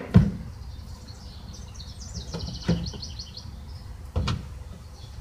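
Wooden knocks of a 2x4 board being handled and set down, three in all, the first just after the start the loudest. A bird chirps repeatedly in the middle.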